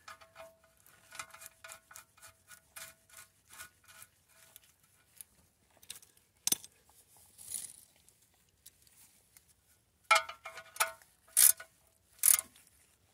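Metal clicks and taps as an oil drain plug with a new washer is threaded back into an oil pan: a run of faint quick clicks at first, then a few louder, ringing metallic clicks near the end as the plug is tightened with a wrench.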